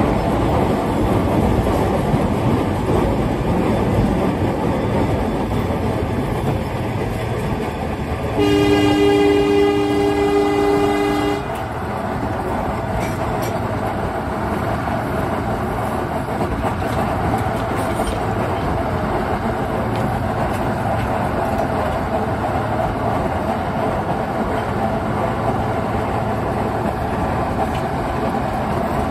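Narrow-gauge train rolling along on its rails behind a small diesel locomotive, a steady rumble and rattle of wheels and engine. A third of the way in, the locomotive's horn sounds one long chorded blast of about three seconds.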